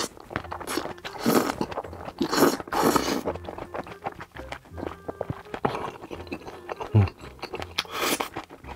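Close-miked eating: noodles slurped in several strong pulls over the first three seconds or so, then wet chewing with smacking and clicks of the mouth.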